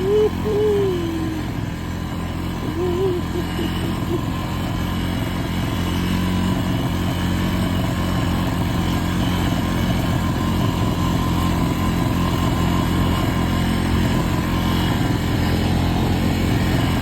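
Honda Foreman ATV's single-cylinder engine running steadily, getting a little louder over the first few seconds. It runs evenly now that a new CDI box, ignition coil and plug wires have cured its misfiring.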